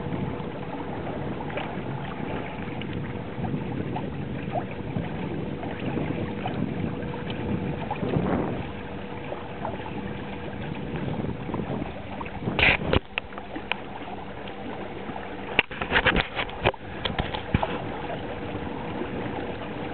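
Steady rush of wind and water aboard a small sailing trimaran moving in light air. A few sharp knocks and clatters stand out about two-thirds of the way through.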